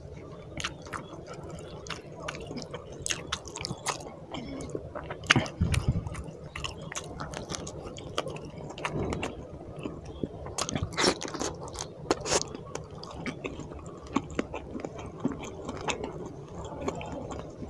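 Close-miked eating of rice and fish curry by hand: wet chewing and lip smacks, with the squelch of fingers working rice into gravy, as many small irregular clicks and smacks.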